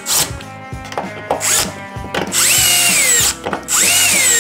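Cordless drill-driver driving screws into a steel spring hinge on a door frame: a couple of short pulses, then two longer runs of about a second each, the motor whine dropping in pitch toward the end of each run as the screw tightens.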